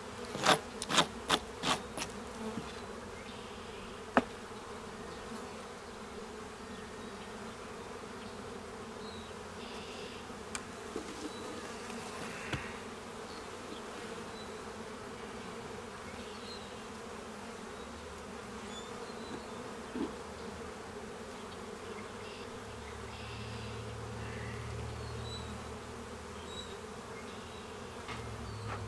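Honeybees buzzing steadily around an opened hive during a brood-box reversal. A quick run of sharp taps or clicks sounds in the first two seconds, one more sharp click about four seconds in, and a few faint clicks later.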